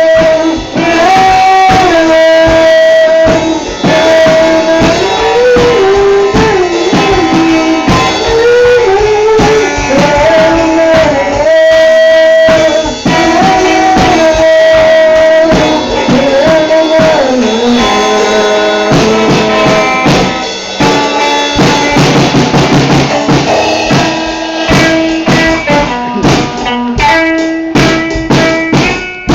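Band music without words: a drum kit keeps the beat under a lead melody of held notes that step and glide in pitch. About nineteen seconds in, the melody drops out and the drums and backing carry on.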